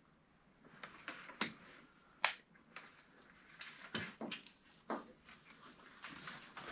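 Scattered light clicks and rustles of hands working through an engine wiring harness and handling plastic electrical connectors, with one sharper click a little over two seconds in.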